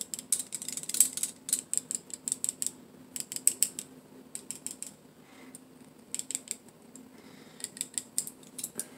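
Bursts of rapid, light metallic clicking and rattling from a deployed out-the-front knife's blade being wiggled in its handle, the sign of a loose blade with play in it. The clicking comes in clusters, densest at the start and again near the end, with sparse clicks in between.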